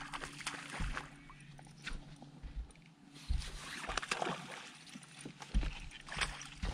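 Small waves lapping and slapping against a fishing boat's hull, with a few deep thumps and scattered clicks and knocks.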